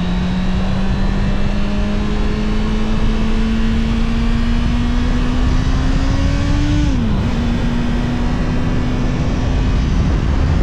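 Honda CBR650R's stock-exhaust inline-four engine pulling under acceleration while riding, its pitch rising slowly; about seven seconds in it drops sharply at an upshift, then climbs again, with wind rumble on the microphone underneath.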